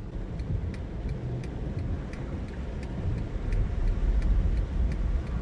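Car cabin noise while driving in heavy rain: a low rumble of engine and tyres on the wet road, growing louder about four seconds in, with a light regular ticking about three times a second.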